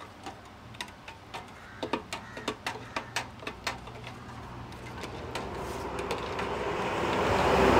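Light, irregular clinks and clicks of kitchen utensils against a vessel, then a steady hiss that builds up louder over the last few seconds.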